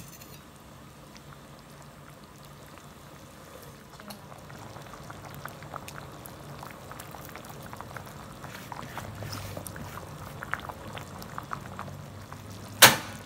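Pork rib and green papaya soup simmering in a stainless steel pot, its bubbles making many small pops that grow busier from about four seconds in. A single sharp click near the end.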